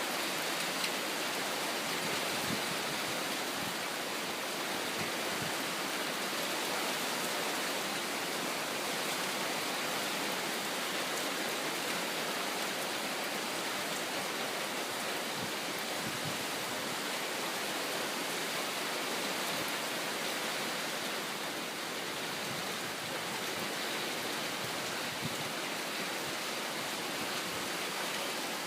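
Heavy typhoon rain pouring down steadily, an even, unbroken hiss of downpour.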